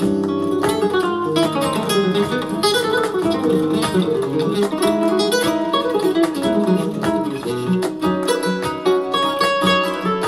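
Guitar music played back from a Kenwood DP-520 CD player, with many fast plucked notes.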